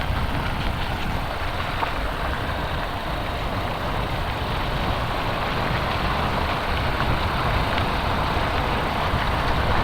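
Motorcycle running steadily on the road: a continuous low engine rumble mixed with road and rushing-air noise, getting slightly louder toward the end.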